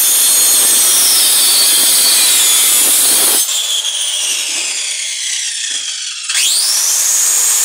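Small handheld circular saw fitted with a wood-cutting blade, cutting through a wooden board. About three and a half seconds in, the cut ends and the saw runs quieter off the wood. Near the end its whine rises sharply and loud cutting resumes.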